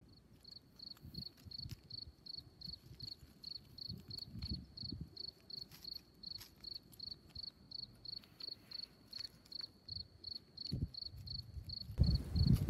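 A cricket chirping steadily, about three short high chirps a second, over faint low rumbling on the microphone that grows louder near the end.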